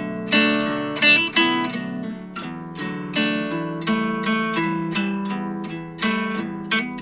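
Background music played on acoustic guitar: notes plucked one after another, each fading after it is struck.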